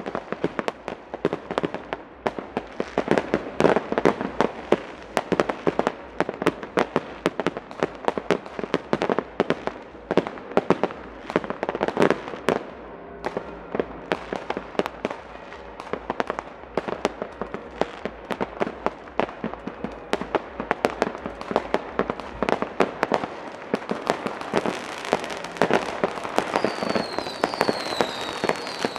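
Many fireworks and firecrackers going off at once: a dense, continuous stream of bangs and crackles. In the last few seconds a hiss builds, with several short falling whistles.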